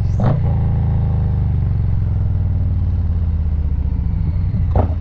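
Harley-Davidson Low Rider S Milwaukee-Eight 117 V-twin running through an SP Concepts Big Bore 4.5 aftermarket exhaust while riding. The exhaust note eases down slightly in pitch, then settles into a lumpier, pulsing beat near the end.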